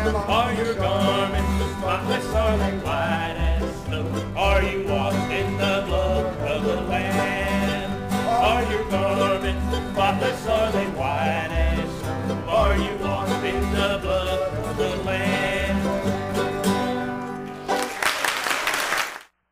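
Bluegrass string band playing without vocals, with banjo, mandolin and acoustic guitars over upright bass notes pulsing steadily underneath. The music stops near the end, followed by a short burst of noise before the sound cuts off.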